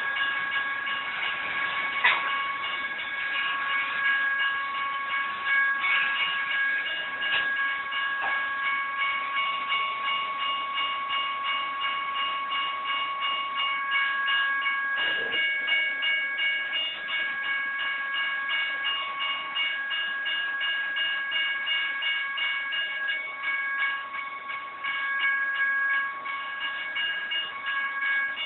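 Freight train of trailer-on-flatcar intermodal cars rolling past over a grade crossing, wheels rumbling and clattering steadily. Several steady high ringing tones sound over it, fading in and out.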